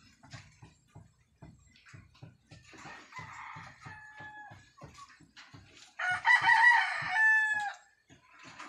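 Roosters crowing: a fainter crow about three seconds in, then a louder, nearer crow about six seconds in that holds its final note before breaking off. Faint low knocks repeat underneath.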